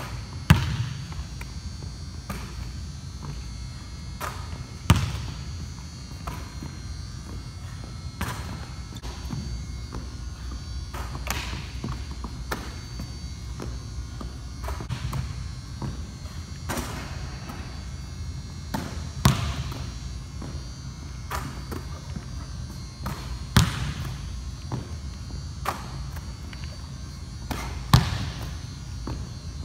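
Basketball bouncing on a hardwood gym floor and off the rim and backboard, in irregular thumps with a handful of much louder bangs, over a steady low hum.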